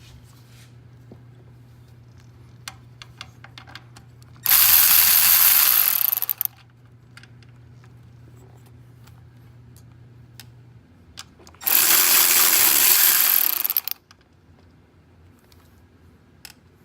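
A ratchet with a 10 mm socket backing off the two nuts that hold an EVAP purge valve to the intake manifold. There are two loud ratcheting runs of about two seconds each, a few seconds apart, with small clicks of the socket and nuts between them.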